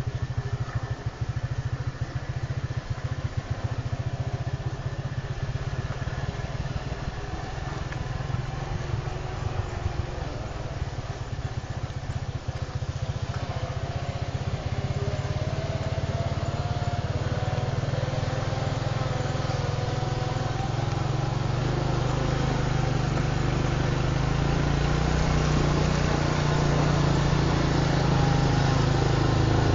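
An engine or motor running continuously, its tone rising slowly in the second half.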